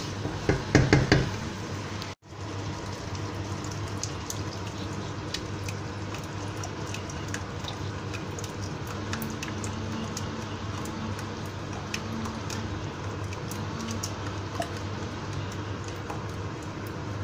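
Wooden spoon scraping and knocking in a frying pan as onions and peas are stirred, then, after a brief cut, the pan sizzling and crackling steadily while tomato sauce is poured in.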